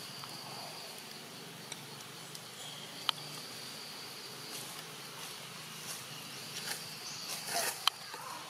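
Insects trilling steadily at a high pitch, with a sharp click about three seconds in and a brief rustle followed by a louder click near the end.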